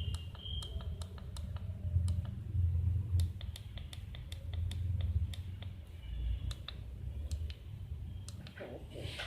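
Sewing machine running slowly: its needle mechanism clicks, about five a second at first and more unevenly later, over a low motor hum.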